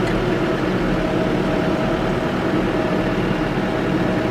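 Blue New Holland loader tractor's diesel engine running steadily as it drives along a snowy track, with a steady whine over the engine.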